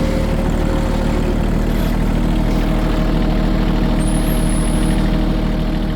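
Tractor engine running steadily while it drags a tire over freshly rototilled garden soil to level it.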